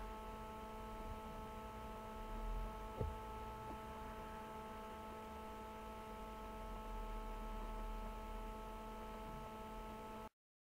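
Faint steady hum of room tone, several even tones held over a low rumble, with a brief faint tap about three seconds in. The sound cuts off suddenly near the end.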